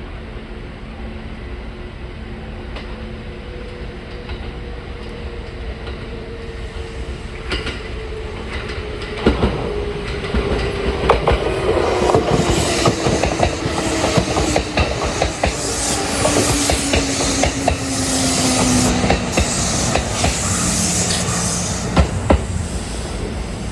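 Kintetsu 2800-series electric train running on the rails, its wheels clattering over rail joints and points from about nine seconds in. Under the clatter a motor whine falls slowly in pitch. The sound grows louder through the middle and eases near the end.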